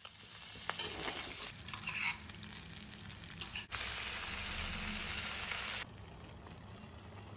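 Pork and mustard leaves sizzling as they fry in a pan, with a few light clicks of a utensil. The sizzle changes abruptly between short cuts and drops to a fainter hiss near the end.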